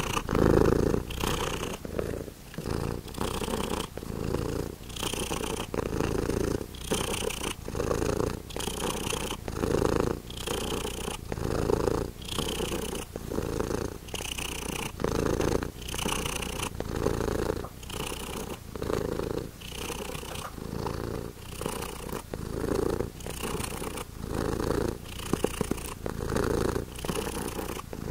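Domestic cat purring close up, a continuous rumble that swells and fades about once a second with its breathing.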